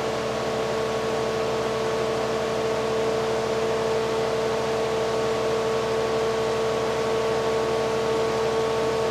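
Induction motor spinning the rotor of a multi-coil, magnetically coupled generator, running at speed with a steady hum. A few even tones, the strongest a mid-pitched whine, sit over a rushing noise. The generator runs unloaded, putting out about 250 volts.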